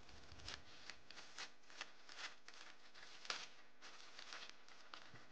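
Black plastic bubble mailer being torn and peeled open by hand: faint, irregular crinkling and rustling of the plastic, loudest a little after three seconds in.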